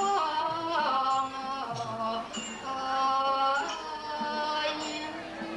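Thai classical piphat ensemble music: a melody of long held, gently sliding notes over the ensemble, with short bright ticks recurring between phrases.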